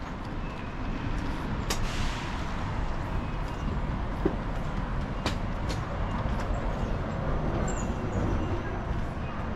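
City street traffic: a steady rumble of road vehicles that swells about a second in, with two sharp clicks.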